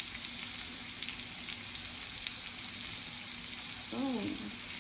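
Stuffed chicken breasts frying in a hot cast iron skillet: a steady sizzle with scattered crackles and pops.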